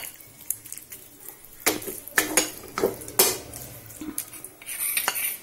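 Wooden spatula scraping and knocking against a non-stick kadhai and a glass bowl as thick tomato chutney is scooped out: a series of sharp knocks and scrapes.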